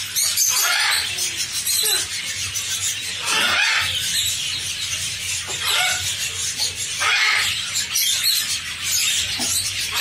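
Caged animals giving repeated shrill squealing calls, one every second or two, over a steady high chatter of small birds.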